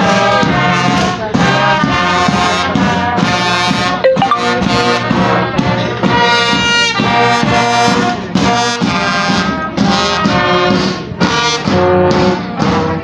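Brass music playing continuously, with many held and moving notes.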